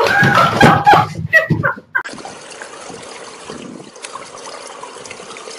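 About two seconds of loud scuffling commotion with a few short cries, then a steady quiet hiss of outdoor swimming-pool ambience with faint water sounds.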